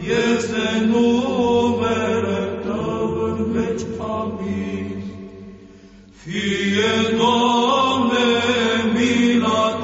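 Byzantine-style Orthodox church chant in Romanian: chanters sing a long drawn-out melismatic phrase over a steady low held drone. The singing fades down briefly past the middle and swells back in about six seconds in.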